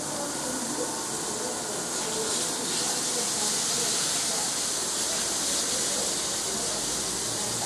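Food sizzling in a pan over a gas stove flame, a steady hiss that grows louder about two and a half seconds in.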